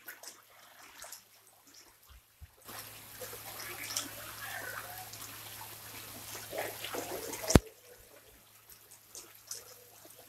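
Water splashing and trickling at the pond surface as common carp crowd in to take scattered feed, busiest in the middle seconds. A single sharp click about three-quarters of the way through is the loudest sound.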